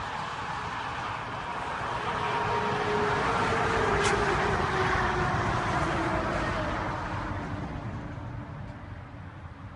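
Tanker truck driving past, its noise swelling to a peak about four seconds in and then fading away, with the engine hum dropping in pitch as it goes by.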